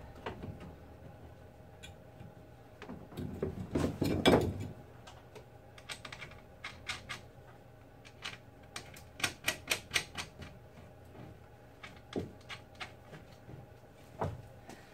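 Metal clicking and knocking as a new rear strut is worked up into the strut tower, its top-mount studs knocking against the body while they are lined up with the holes. A louder clunk comes about four seconds in, and a quick run of clicks around nine to ten seconds.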